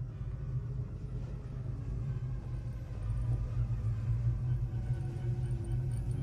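Low, steady rumbling drone from a film soundtrack, with faint held tones above it.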